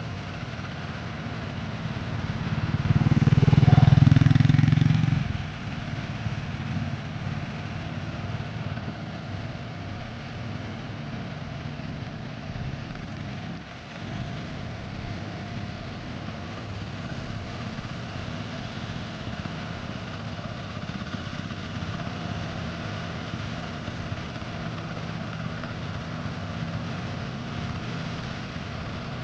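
Steady low engine rumble of passing traffic, with one louder motor vehicle swelling up and fading away a few seconds in.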